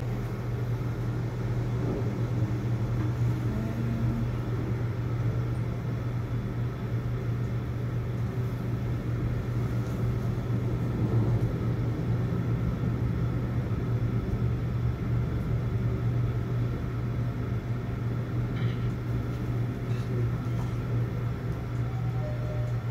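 Passenger elevator car descending: a steady low hum and rumble from the car's travel inside the cabin.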